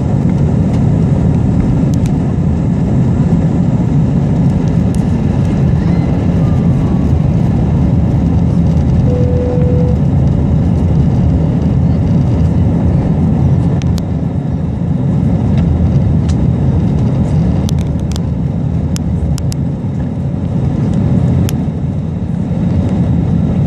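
Airbus A321 jet engines at takeoff thrust heard from inside the cabin: a loud, steady low roar through liftoff and the initial climb. A brief beep sounds about nine seconds in.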